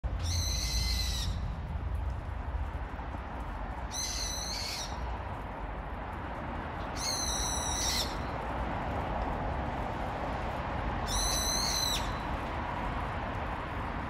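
Brown-eared bulbul calling loudly, four shrill calls of about a second each, a few seconds apart, over a steady low background hiss.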